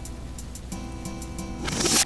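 Background music: held chords over a light ticking beat, with a rising swell near the end that builds toward the drums coming in.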